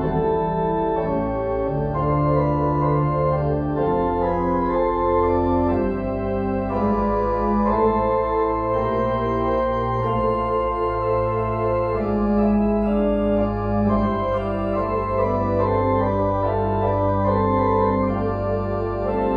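Organ playing held chords over a low bass line that changes note every second or two.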